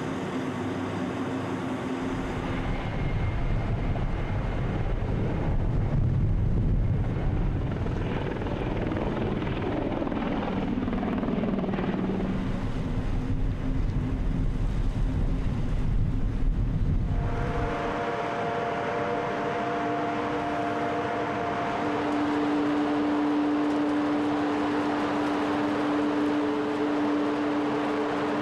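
Landing-craft engines running in choppy water, a deep rumble mixed with wind and water noise; around the middle the engine pitch swings up and down. A little past halfway the sound changes abruptly to a steady engine drone with several held tones, from a Bv206 tracked vehicle in a ship's well deck.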